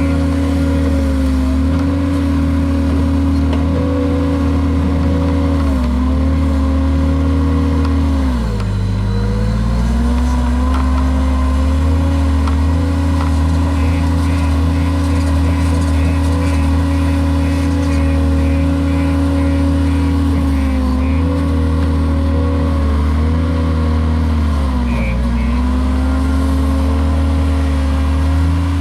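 JCB skid steer loader's diesel engine running at high, steady revs, its pitch sagging briefly several times as it takes load, most deeply about nine seconds in.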